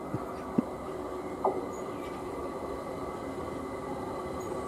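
Class 387 Electrostar electric multiple unit approaching, a steady rumble of its running gear with a faint hum, growing slightly louder. Three short knocks come in the first second and a half.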